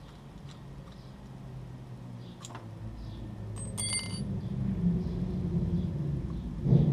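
A low engine rumble that grows steadily louder, with small metal clicks and one brief ringing metallic clink about four seconds in as a motorcycle brake caliper is handled, and a dull thump near the end.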